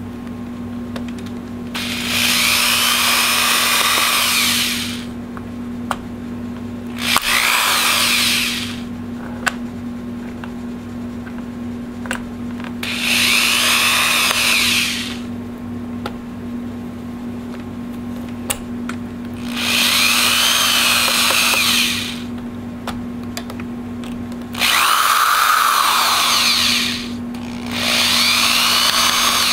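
Cordless electric screwdriver spinning out the bottom-panel screws of a laptop, in six separate runs of two to three seconds each, its motor whine sweeping in pitch. Small clicks fall between the runs, over a low steady hum.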